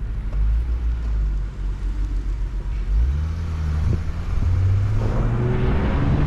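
Car engine idling low, then revving up about three seconds in as the car pulls away and accelerates. Wind rushing over the microphone builds near the end as the car gathers speed.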